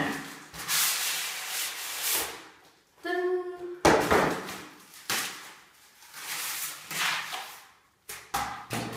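A clapperboard's box being slid open and handled: repeated rubbing and scraping of the packaging, with a sharp knock about four seconds in.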